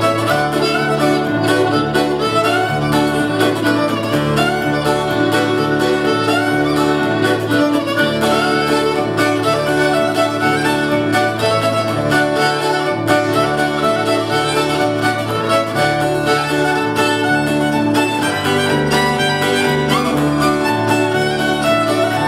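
A fiddle playing an old-time fiddle tune, backed by an acoustic guitar strumming chords and a bass guitar walking a steady alternating bass line.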